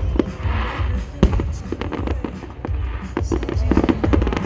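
Aerial fireworks booming and crackling in quick succession, with one especially sharp bang about a second in, over music from loudspeakers.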